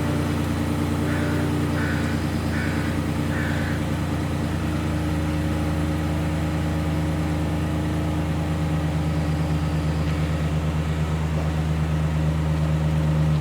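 Chevrolet Express / GMC Savana van engine idling steadily. About a second in, four short higher-pitched sounds come roughly 0.7 s apart.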